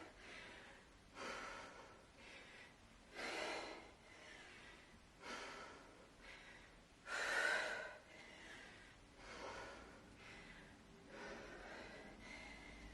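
A woman breathing hard and audibly, with a short forceful breath about every two seconds, in time with each repetition of a heavy kettlebell row-to-deadlift.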